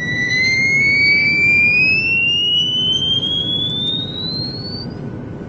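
Cartoon sound-effect whistle rising steadily in pitch for about five seconds, stopping just before the end, over a steady low rumble.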